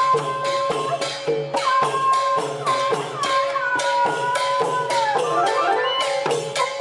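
A street procession band playing Thai folk music: drums and hand cymbals beat a steady rhythm under a wind instrument's melody. The melody slides between notes over a held note, and its pitch drops about five seconds in.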